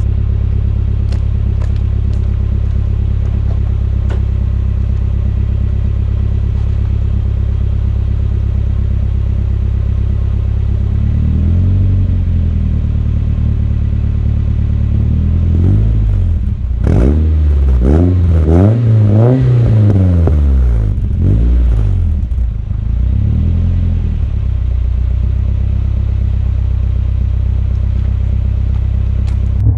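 Nissan 240SX car engine idling loudly and steadily, then revved in a string of rising and falling blips from about ten seconds in, hardest around the middle, before settling back to idle.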